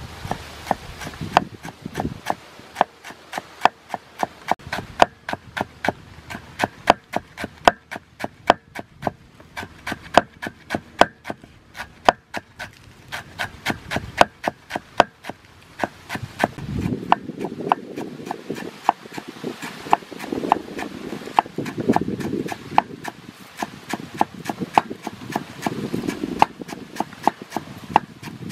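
Steel cleaver chopping green onions on a round wooden chopping board, steady knocks about three a second. About halfway through, a lower rubbing noise comes and goes under the chopping.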